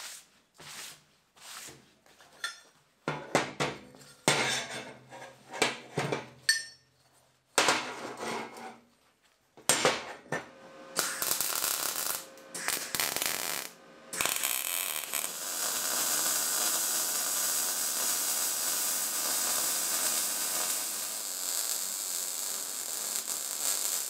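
Quick brushing strokes of a gloved hand sweeping metal filings off a steel welding table, then a MIG welder arcing on steel square tubing: short tack-weld bursts of crackle about ten seconds in, then a steady crackling hiss of a longer weld bead from about fourteen seconds on.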